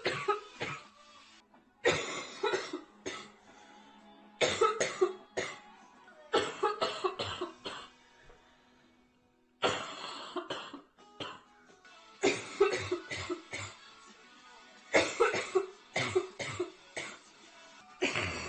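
A girl coughing nearly uncontrollably from a severe chest cold. Fits of several sharp coughs come every two or three seconds, with a short pause about halfway through.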